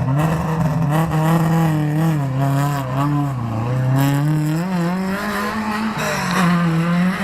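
Car engine running under varying throttle, its pitch wavering up and down and climbing somewhat in the second half.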